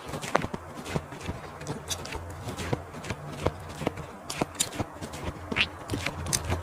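Close-miked eating sounds: irregular crunches and wet clicks of someone chewing barbecue sausage with fresh lettuce, over a low steady hum.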